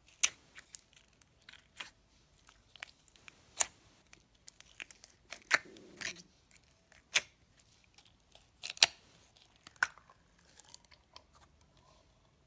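Fingers poking and squeezing clear blue slime in a plastic tub, giving irregular sharp pops and crackles, with a softer, longer squish about halfway through.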